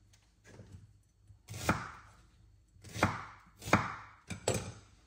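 Kitchen knocks from preparing purple onion: four sharp thunks roughly a second apart, starting about a second and a half in, with a few fainter taps between.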